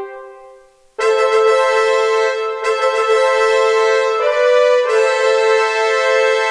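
Sampled high brass section (trumpets) from Spitfire's Albion ONE library played from a keyboard. A held note fades out, and after a short gap a run of long sustained notes follows, changing pitch every second or so, with the last one fading near the end.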